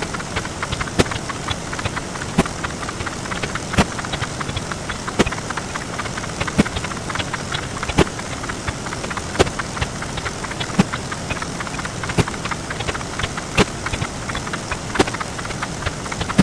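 Counting sound effects sped up 64 times, blurred into a steady hiss full of small clicks, with a sharp louder click about every second and a half.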